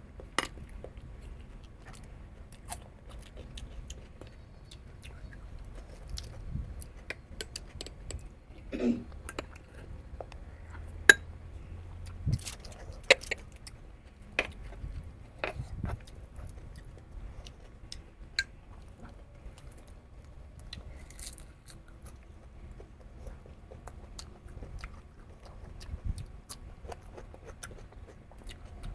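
A person chewing goat head meat and brain, with scattered sharp clicks and clinks throughout; the loudest click comes about eleven seconds in.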